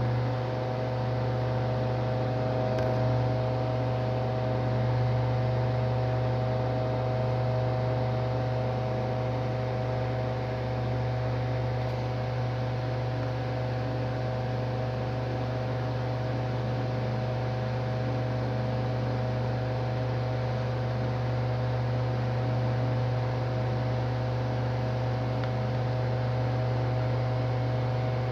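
Mondial washing machine's electric motor running with a steady, unbroken hum, a fan-like drone that is the noise complained of.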